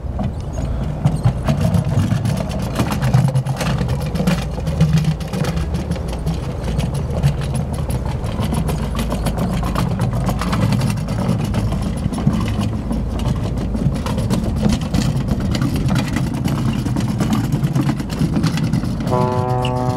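Small kick scooter's wheels rolling over a wooden plank boardwalk: a steady low rumble with fast rattling clicks. A horn sounds about a second before the end.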